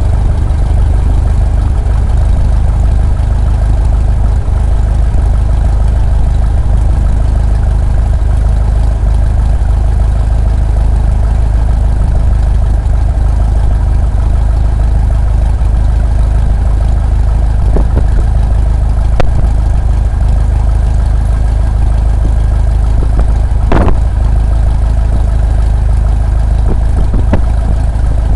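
Single-engine light aircraft's piston engine and propeller running steadily at low power, with a heavy low rumble from a camera mounted outside on the tail. A few short faint clicks in the second half.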